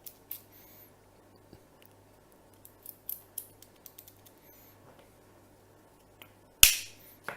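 Lock bumping on a Lane double-cylinder deadbolt: small metallic clicks and taps as the bump key is worked in the cylinder, then one hard, sharp strike about six and a half seconds in, the bump that opens the lock.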